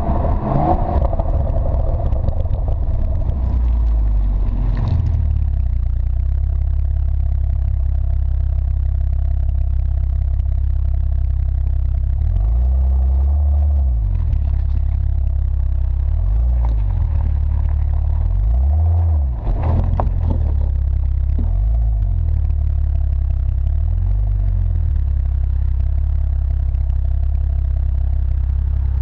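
BMW F12 640i's turbocharged straight-six running through an M Performance exhaust, heard close to the tailpipe while driving at low speed: a steady low exhaust drone that rises and falls in pitch several times from about twelve seconds in.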